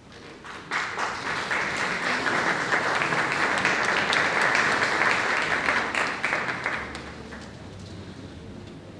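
Audience applause, breaking out sharply about a second in and dying away after about six seconds.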